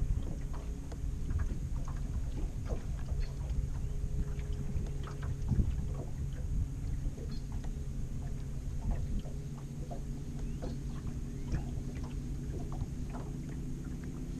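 Water lapping and ticking against the hull of a bass boat, with many small irregular splashes and clicks over a steady low hum.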